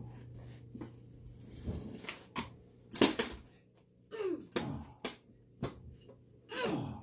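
Scuffling, knocks and thuds of two people play-wrestling on a carpeted floor, the sharpest knocks about three seconds in, with several short groans falling in pitch in the second half.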